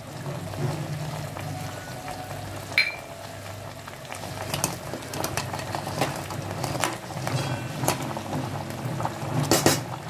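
Crab broth boiling in a pot, with a spoon clinking against the pot several times as it is stirred; the sharpest clinks come near the end.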